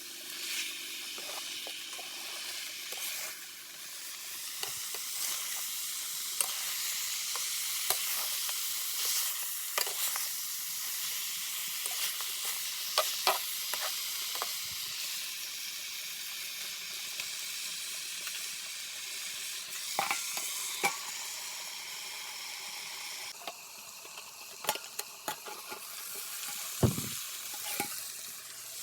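Curry frying in a pan with a steady sizzle, while a spoon stirs and scrapes, knocking against the pan again and again. The sizzle eases a little near the end.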